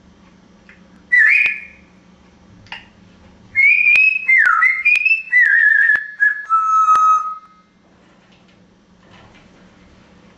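African grey parrot whistling: a short whistle about a second in, then a run of whistled notes that steps down in pitch and ends on a long, lower held note. A few sharp clicks fall among the notes.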